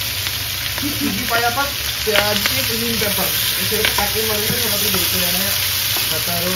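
Chopped onions and green chillies sizzling in hot oil in a wok, stirred with a metal spoon that clicks and scrapes against the pan a few times.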